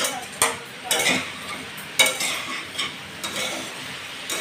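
Metal spatula stirring vegetables in a hot kadai: sharp clacks and scrapes against the pan about once a second, over a low sizzle of frying.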